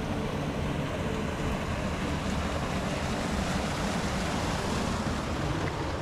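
A rocky stream running and splashing over boulders and a small cascade: a steady rush of water.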